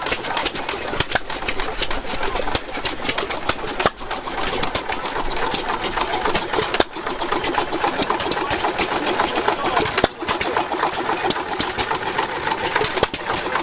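Antique engine running with a steady, rapid mechanical clatter.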